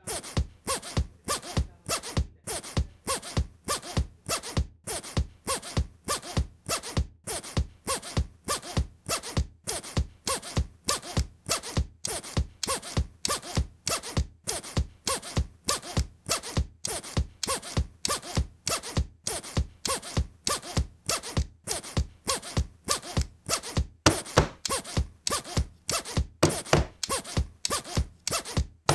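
Pen scratching on paper in a steady, even rhythm of about two to three strokes a second.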